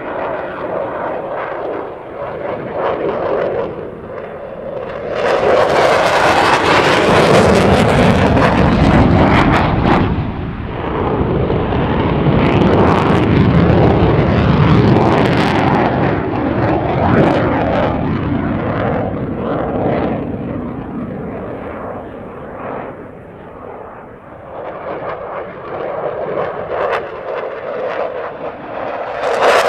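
Fighter jet passing overhead in full afterburner: a dense roar that swells sharply about five seconds in, stays loud with a rough crackle for some ten seconds, then slowly fades away.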